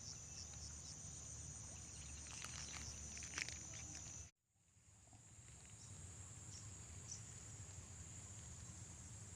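Insects chirring in a steady, high-pitched chorus, with a few faint clicks just before the middle. About four seconds in, all sound cuts out abruptly, then fades back in to the same insect chorus.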